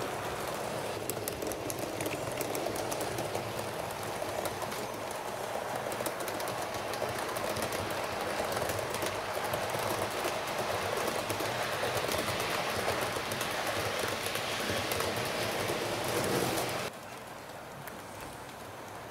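Model train running along the track: a steady rolling rush with many small clicks of wheels on rail, which drops off sharply near the end.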